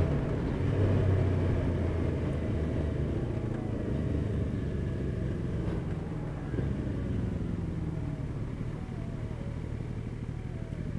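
Sport motorcycle's engine running with a low steady rumble as the bike slows in traffic. The engine note and the rush of air get gradually quieter.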